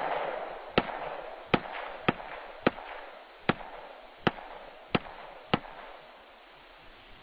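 A rapid string of about nine gunshots, sharp cracks roughly two-thirds of a second apart, each trailing off in echo.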